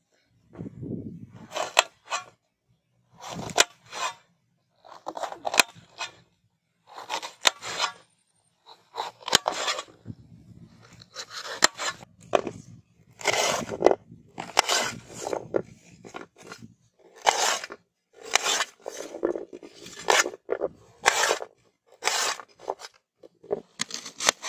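Green bell pepper being cut and pulled apart with a small knife: crisp crunching and snapping of the flesh in separate bursts every second or two.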